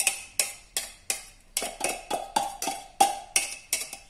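A spoon knocking and scraping against a food-chopper bowl to empty out a chopped vegetable mixture: a quick series of sharp knocks, about three a second, each with a short ringing tone.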